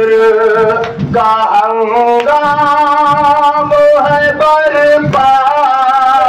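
A man chanting an Urdu noha (Shia lament) into a microphone, holding long wavering notes, over a steady beat of low thumps about twice a second from mourners striking their chests in matam.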